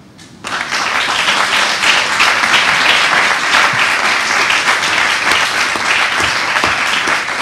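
Audience applauding a speaker who has just finished. The applause starts suddenly about half a second in and keeps up steadily.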